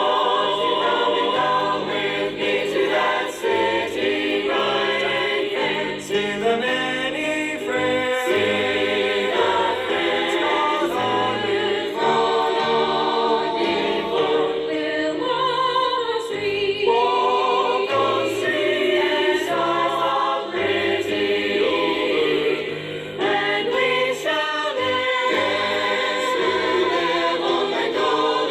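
Choir of mixed voices singing a gospel song in harmony.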